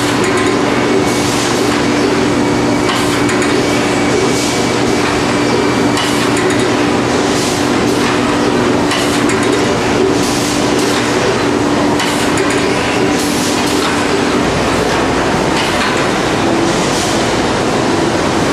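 Webster Griffin high-speed bag palletiser and its roller conveyors running: a loud, steady machine hum and rattle, with a short hissing burst about every one and a half seconds as the robot gripper cycles through bags. The steady hum drops out about three-quarters of the way through.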